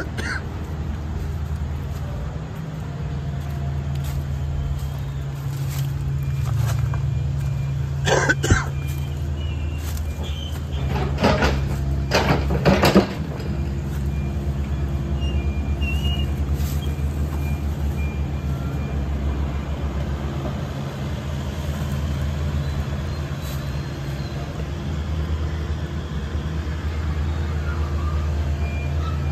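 Mini excavator's diesel engine running steadily, with several loud knocks about eight seconds in and again about eleven to thirteen seconds in.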